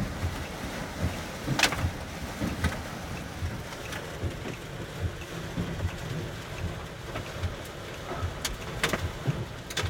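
Heavy rain beating on a car's roof and body, heard from inside the cabin, with several sharp knocks of hailstones hitting the car. The loudest knock comes about a second and a half in, and a couple more come near the end.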